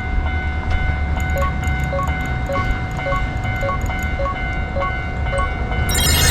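Railroad crossing alarm ringing with evenly spaced dings, a little under two a second, over the steady rumble of a train. The dings stop about five seconds in, and a brighter, louder sound comes in near the end.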